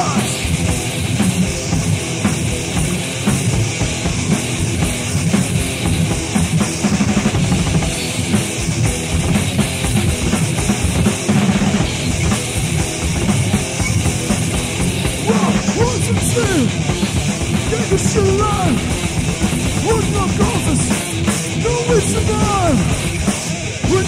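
Thrash metal band playing an instrumental section of a demo-tape recording: fast drums and distorted rhythm guitars. From a little past halfway in, a lead guitar comes in with bending notes over the riffing.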